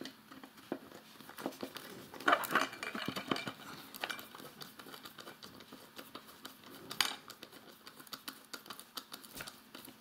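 Small screw being driven into a 3D-printed plastic housing with a small hand screwdriver: a string of small clicks, ticks and scrapes from the bit and the handled plastic parts. A louder cluster of clicks comes about two seconds in, and a single sharp click near seven seconds.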